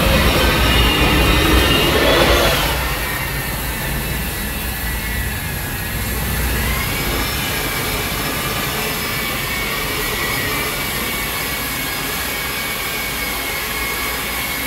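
Electric drywall sanders running, a steady motor whine with several high tones. The sound drops a little about three seconds in, and the whine rises in pitch around seven seconds in.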